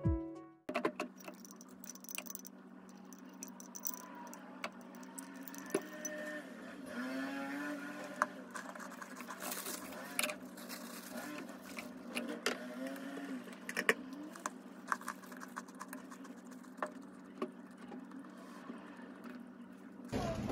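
Background music cuts off within the first second. What follows is quiet room sound: a steady low hum, with scattered light clicks and taps of small objects being handled.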